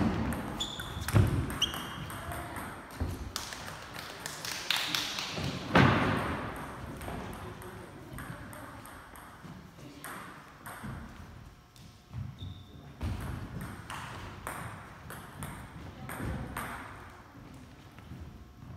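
Table tennis ball clicking off the bats and the table in a quick rally at the start, then in scattered single bounces.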